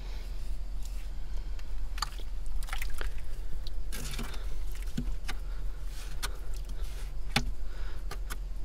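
Bare hands digging and scraping through damp soil, with irregular crunches and clicks as dirt crumbles and is pulled away.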